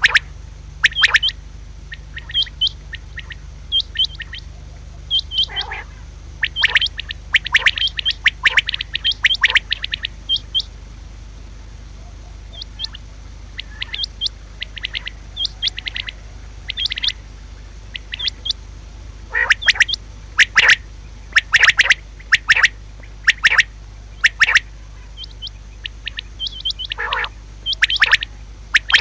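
Common quail calling: short, sharp notes in irregular clusters, with pauses of a second or two between bouts, over a steady low hum.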